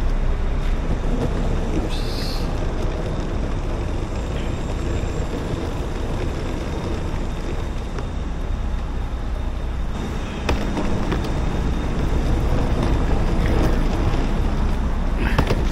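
City road traffic: vehicles running past, with a bus right alongside near the start, as a steady low rumble.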